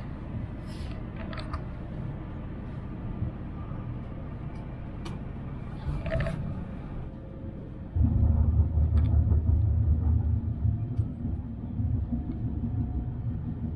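Low rumble inside the cabin of a Tohoku Shinkansen Yamabiko bullet train pulling out of the station and gathering speed, with a few faint clicks in the first half. A little past halfway the rumble turns abruptly louder and stays so.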